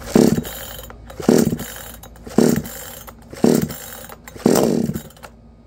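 Recoil starter of a brand-new Huyosen 62cc two-stroke chainsaw being pulled five times, about once a second, with the choke out on its first cold start. The engine is cranked over but does not run; the last pull is a little longer.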